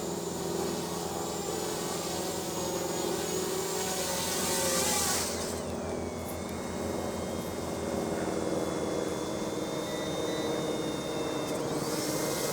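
XK X450 VTOL RC plane's electric motors and propellers whining steadily as it hovers in multi-rotor mode, with a louder rushing swell about four to five seconds in and the whine's pitch shifting after it.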